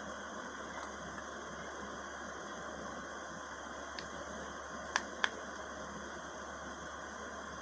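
A steady hiss with a few small sharp clicks from tools against a mobile phone's parts as it is taken apart: one faint click about four seconds in, then two more in quick succession a second later.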